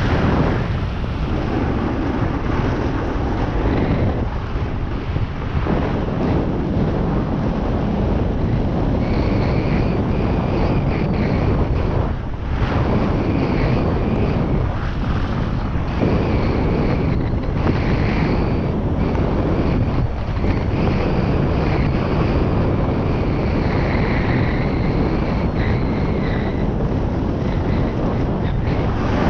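Wind rushing over the microphone during a downhill run on snow, with a steady hiss of sliding underneath. A faint thin whine comes and goes from about nine seconds in.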